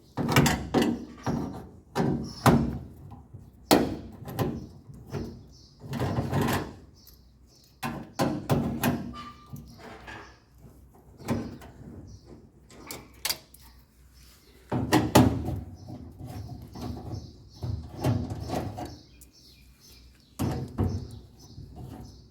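Irregular knocks and metal clunks from taking apart a dryer cabinet: screws being removed and sheet-metal panels handled, with a few quick clusters of knocks.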